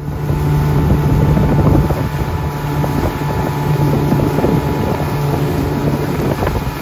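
Suzuki outboard motor running at speed, a steady drone, with water rushing in the wake and wind buffeting the microphone.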